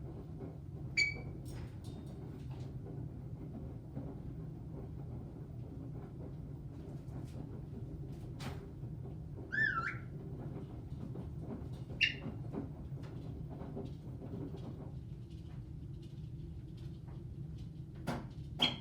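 Caique parrot giving four short, high whistled calls, one of them wavering up and down, over a steady low hum.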